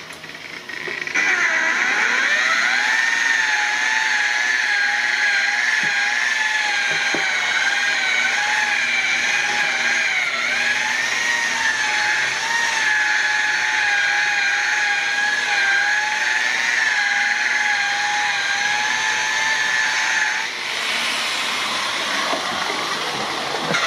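Electric polisher with a foam buffing pad spinning up about a second in, then running with a steady whine that wavers slightly as it is worked over a plastic headlight lens, buffing in a thin coat of gloss product. It winds down near the end.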